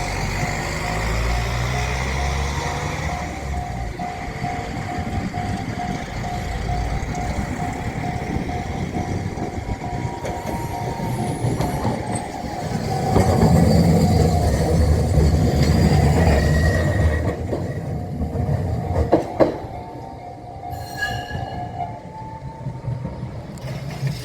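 Level-crossing warning bells ringing in a steady, evenly pulsing tone while a diesel train rumbles over the crossing. The train is loudest a little past halfway, and a few sharp wheel clacks follow. The bells break off briefly near the end.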